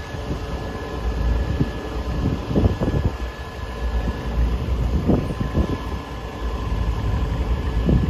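Wind buffeting the microphone in gusts, over the steady running of distant tractor engines working the field.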